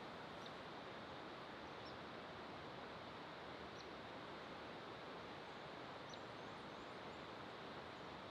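Steady hiss of rushing water, with faint short high chirps every couple of seconds.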